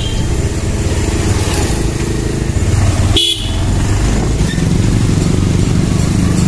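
Motorcycle engine running steadily while riding, with road and wind noise and a short horn toot about three seconds in.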